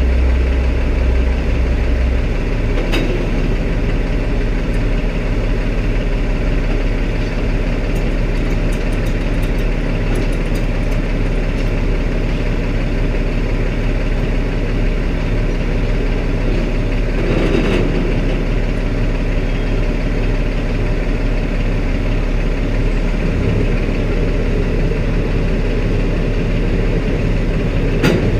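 Peterbilt semi truck's diesel engine idling steadily, with a few light clicks in the middle.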